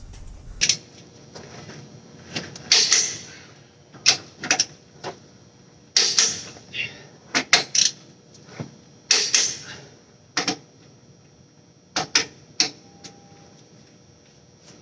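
Ratcheting torque wrench clicking in short bursts while the differential's carrier bearing cap bolts are run down and tightened, with sharp metal clicks and clinks.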